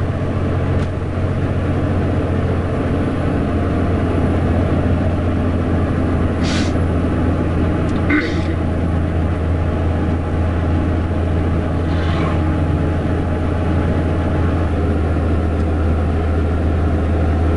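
Steady low drone of an IVECO truck's diesel engine heard from inside the cab while cruising, with road noise and a few short swishes of passing vehicles.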